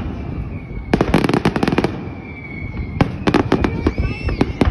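Fireworks display: aerial shells bursting in rapid strings of sharp cracks, in a volley about a second in and another from about three seconds in, over a low rumble.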